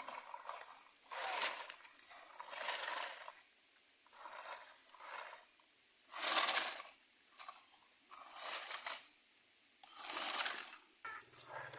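Stones and gravel crunching and scraping as toy trucks are loaded and pushed, in about seven separate gritty bursts of under a second each.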